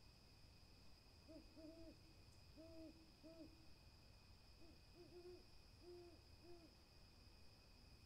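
Burrowing owl hooting faintly: short, low two-note coos, about four of them in two runs with a pause of about a second between the runs.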